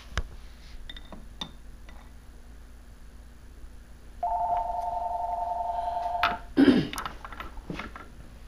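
A few small metal clicks from parts being worked into a BCS walk-behind tractor's PTO shift assembly. About four seconds in comes a steady electronic two-tone warble lasting about two seconds, then a brief loud noise just after it.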